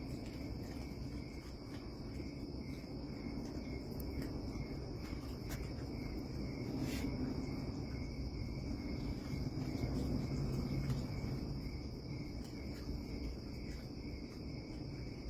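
Crickets trilling steadily and high, over a low rumble of background noise, with a few faint clicks.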